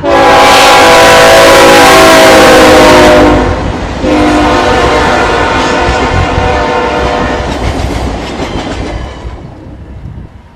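Diesel locomotive air horn sounding two blasts as the train passes: a long, very loud blast whose chord drops in pitch, then after a short break a second blast that fades away, over the rumble of the train.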